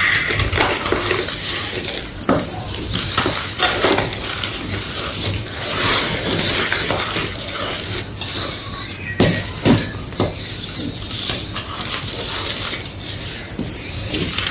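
Round pieces of gym chalk being bitten and chewed close to the microphone: a run of irregular, crisp crunches, with a few sharper cracks about two, six and nine seconds in.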